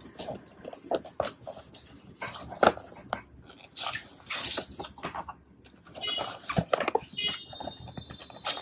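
Cardboard speaker packaging being handled: rustles, scrapes and light taps as the printed sleeve is slid off the white inner box and the box is opened. From about six seconds in a thin, high whine sounds over the handling and keeps on.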